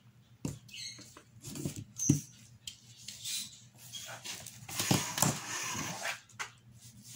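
Tabletop handling sounds during acrylic painting on cardboard: scattered clicks and knocks from a plastic paint bottle and a paintbrush, the sharpest about two seconds in, and a longer scraping rustle about five seconds in.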